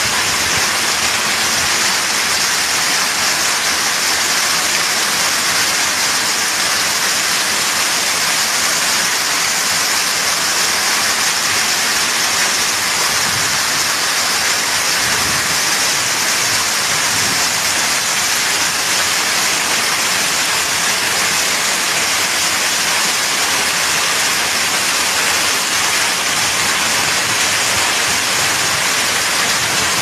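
Hailstorm: hailstones and rain pelting down onto the ground, a dense, steady rush that does not let up.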